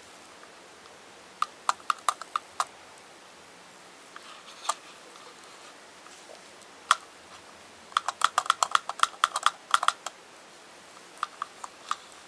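Hard plastic toy clicking and tapping as it is handled and turned over: irregular clusters of sharp clicks, with a dense run about eight to ten seconds in.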